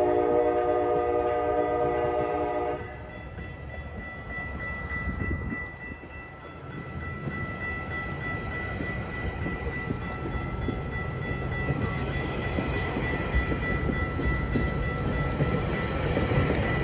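GO Transit train's five-chime K5LA air horn sounding a chord that cuts off about three seconds in. The train then rumbles past with its wheels clattering on the rail joints.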